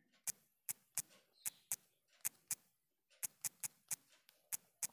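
Typing on a smartphone's on-screen keyboard: about a dozen faint, sharp clicks, one per key press, in an uneven run with a short pause midway.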